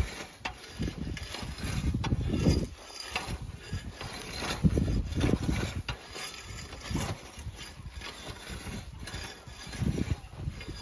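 Hand-pushed cycle weeder dragging its blade through dry, clumpy soil to uproot weeds: a scraping, clattering sound with many small clicks, swelling and fading unevenly with each push.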